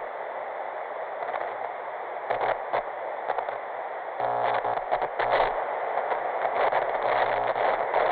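Television static: a steady hiss that crackles throughout, with short stretches of low buzz breaking in, the longest about halfway through.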